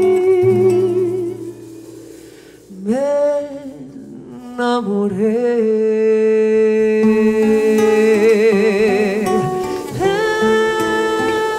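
Acoustic guitar playing, then, about three seconds in, a woman's voice comes in singing long held notes with vibrato into a microphone over the guitar accompaniment.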